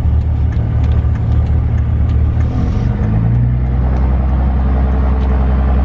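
A 2005 Dodge Ram 2500's 5.9 L Cummins diesel engine running while the truck is driven, heard from inside the cab as a loud, steady low drone. Its pitch changes a little about three seconds in.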